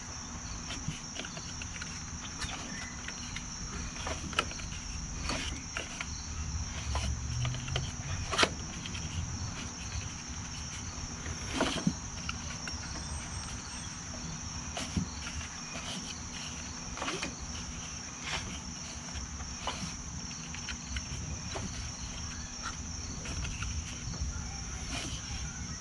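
Insects chirring steadily at a high pitch, with scattered light clicks and taps of hands and tools working on a lawn tractor engine's rocker arm.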